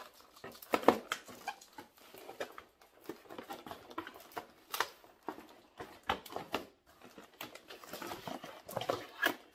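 Cardboard packaging box being opened by hand: irregular scrapes, rustles and small knocks as the taped cardboard flaps are pulled loose and the box is handled.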